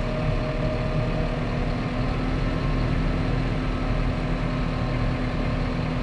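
Massey Ferguson 5600-series tractor's diesel engine running steadily as the tractor creeps forward, heard from inside the cab, with a steady low hum under it.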